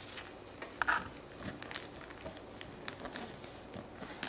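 Paper being folded and creased by hand: faint rustling and crinkling in short crackles, with one louder crackle about a second in.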